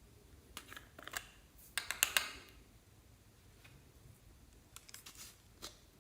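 Clear slime with makeup and glitter mixed in, being squished and worked by hand, giving clusters of wet clicks and crackling pops; the loudest cluster comes about two seconds in, with smaller ones near one second and five seconds.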